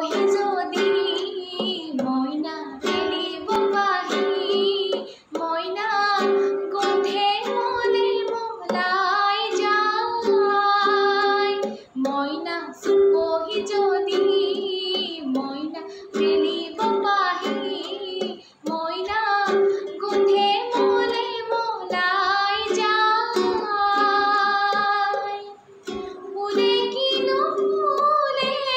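A woman singing an Assamese song solo, in long held phrases with short breaks between lines, over a steady instrumental accompaniment.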